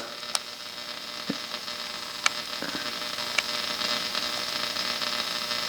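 Tube radio's loudspeaker giving out a steady hum and hiss, with a few faint clicks.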